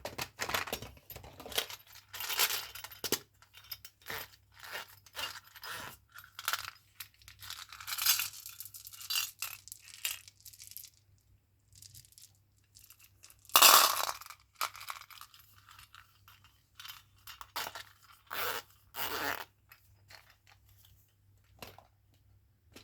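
Chewing gum packets being handled and opened: irregular crinkling, rustling and tearing of the packaging with small clicks, in short bursts with quiet gaps between them. The loudest burst comes about fourteen seconds in.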